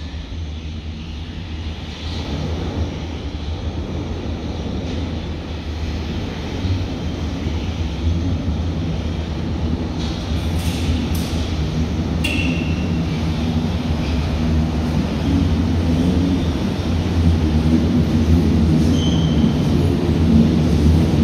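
Berlin U-Bahn A3L71 small-profile train approaching through the tunnel and running into the station, its rumble growing steadily louder. There are a few sharp clicks about halfway through, and two short high squeaks.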